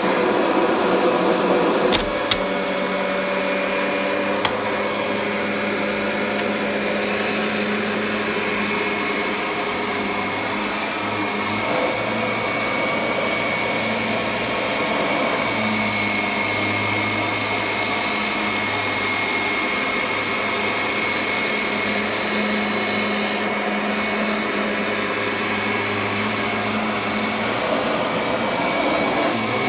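Vacuum cleaner running steadily on carpet with a constant high whine, worked in slow forward-and-back passes. Two light clicks about two and four seconds in.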